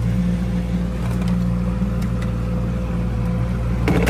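Motorboat engine running steadily under way, a low even drone with a thin steady whine above it. A short sharp knock sounds just before the end.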